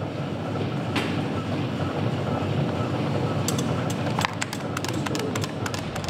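Mechanism of a paper-roll player piano running, with no notes played: a steady whooshing hum with a sharp click about a second in and a growing run of quick clicks in the second half.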